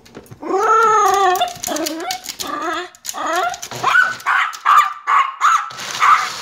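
Small Yorkie-Poo dog barking at a blender: drawn-out whining calls, then a quick string of short barks from about four seconds in.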